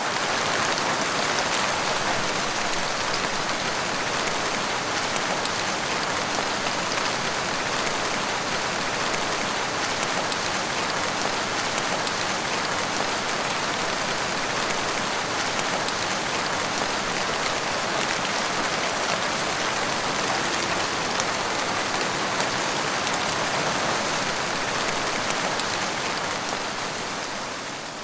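Steady rain falling, a dense patter of countless drops hitting a surface, holding an even level until it fades out near the end.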